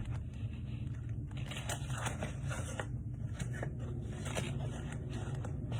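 Trading cards and foil pack wrappers being handled: quiet, irregular scraping, ticking and crinkling, over a steady low hum.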